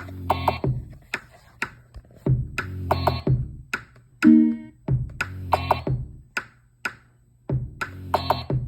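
Electronic drum-machine beat from a Native Instruments Maschine: a loop of deep bass notes and sharp percussive hits that repeats about every two and a half seconds. A sustained synth chord sounds briefly about four seconds in.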